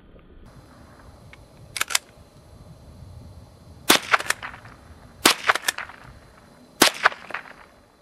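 Remington Model 12 .22 rimfire pump-action rifle firing three sharp shots about a second and a half apart. Each shot is followed by quick clacks of the pump action being worked, and a quieter double clack comes before the first shot.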